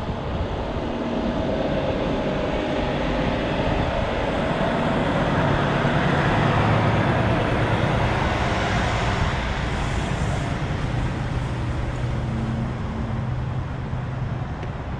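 Steady vehicle and traffic noise: a continuous rumble with a faint engine hum, growing a little louder around the middle and easing off near the end.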